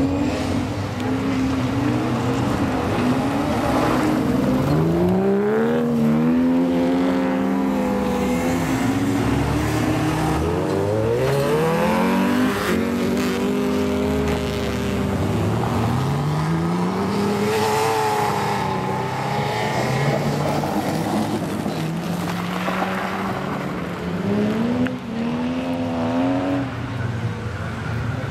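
Engines of a pack of rallycross cars racing, revving hard and changing gear over and over, so that the engine note climbs and drops every few seconds.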